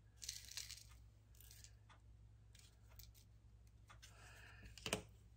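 Loose sequins being poured onto a glued patch of a scrapbook page, giving a faint patter and rustle in short spells. There is a single sharp tap near the end.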